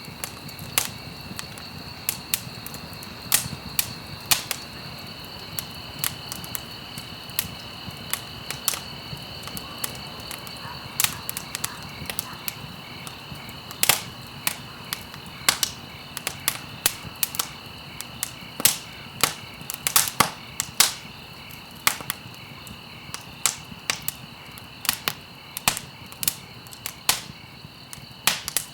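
Campfire crackling: frequent, irregular sharp pops and snaps over a steady soft hiss. A steady high-pitched tone runs underneath.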